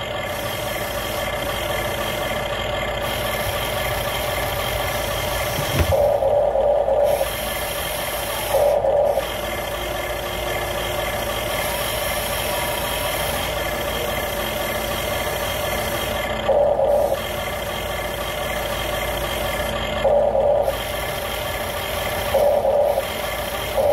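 Top Race TR211M RC excavator's built-in sound module playing a simulated engine sound steadily, with about five short louder bursts scattered through it.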